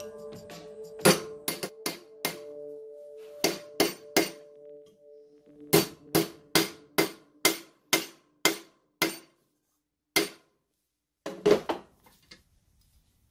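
Hammer blows on a thin strip of sheet stainless steel clamped in a bench vise, bending it over the jaws: about twenty sharp metallic strikes in short runs, with wider gaps between the last few.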